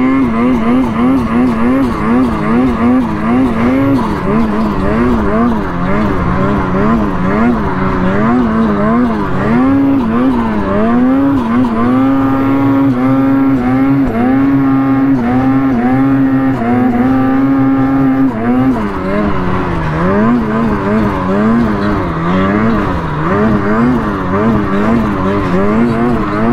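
2024 Ski-Doo Freeride 146 Turbo snowmobile's turbocharged two-stroke engine running under the rider, its pitch rising and falling about twice a second with the throttle, held steady at a higher pitch for several seconds midway, then rising and falling again. The rider says it is "running a little funky": it has been running weird all day.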